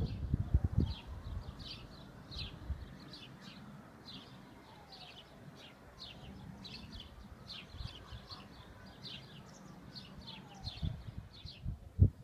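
Small birds chirping, many short high notes repeated all through, over outdoor background noise. Low muffled thumps on the microphone in the first second and again near the end, the loudest just before it closes.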